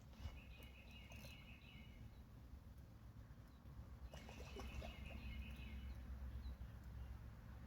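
A small bird singing a short, rapid trill about a second and a half long, twice, about four seconds apart, faint over a low steady rumble.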